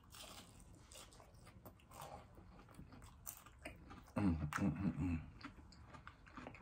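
Close-up crunching and chewing of a breaded, deep-fried butterfly shrimp, a run of small crackles. A little past the middle, a louder low "mm" hum of approval comes in over the chewing.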